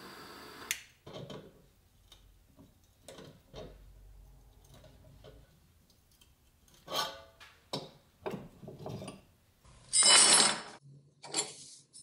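A hand-held tool's steady hiss cuts off about half a second in. Then come scattered clicks and scrapes of needle-nose pliers gripping and bending small sheet-steel tabs, with two loud rasping scrapes of metal near the end.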